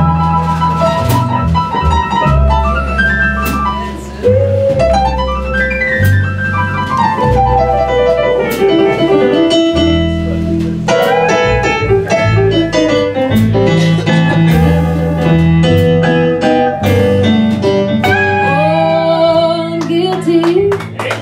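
Live band music, an instrumental break: electric keyboard with bass and drums under a melodic lead line that plays fast rising and falling runs, with some bent notes near the end.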